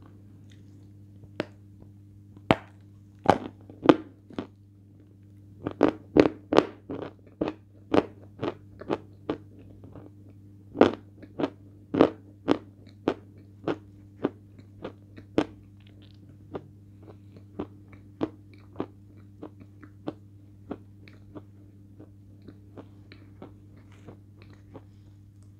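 A lump of natural chalk being bitten and chewed: sharp, crisp crunches about two a second, loudest and densest through the first half, thinning to fainter crunches toward the end, over a faint steady hum.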